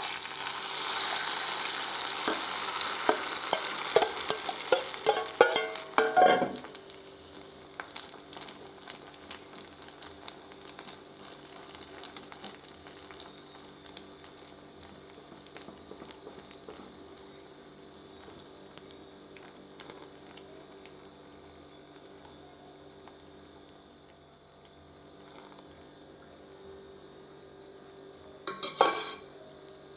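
Egg and grated potato batter poured into hot olive oil in a pan: a loud sizzle with a spoon clinking and scraping for about the first six seconds, then settling to a quiet steady frying sizzle with occasional light clicks. A brief clatter near the end.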